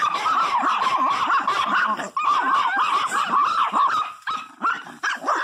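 Several miniature pinschers barking and yipping over one another in a fast, continuous scuffle, a dog squabble rather than play. The racket eases off briefly about four seconds in.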